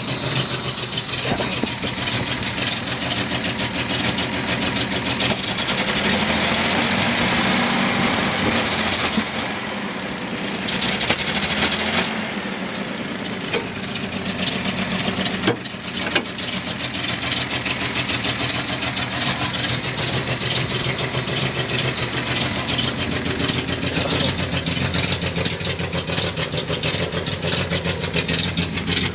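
1976 Datsun 280Z's 2.8-litre straight-six engine idling roughly, its note steady but uneven, with a brief dip in level around ten seconds in and a single sharp click about halfway through.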